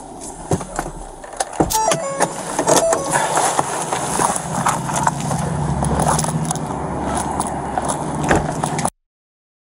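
Body-worn camera rubbing and knocking against clothing and gear as an officer climbs out of a patrol car, with clicks and jangling and a few short electronic tones about two seconds in. Then a steady low hum sets in outdoors, and the sound cuts off suddenly near the end.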